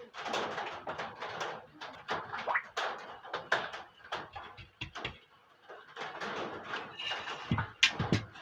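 Hands working a cord through the plastic pulleys and fittings of a curtain track: irregular rustling and clicking, with a couple of louder knocks near the end.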